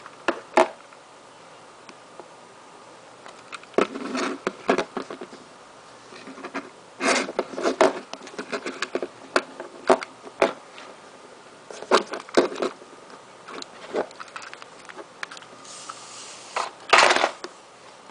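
Hands handling a small plastic device and its packaging: scattered clicks, taps and short scraping rustles in irregular clusters, with a louder rustle near the end.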